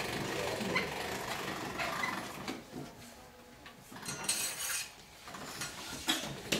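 Hand-cranked pasta machine clattering as its crank is turned and a sheet of pasta dough is fed through the rollers, with small clicks and handling noise and a short hiss about four seconds in.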